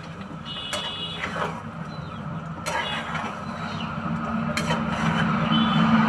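A spatula scraping through thick curry in a wok and knocking against the pan several times as it is stirred, with a brief high squeak about a second in. A low steady hum grows louder toward the end.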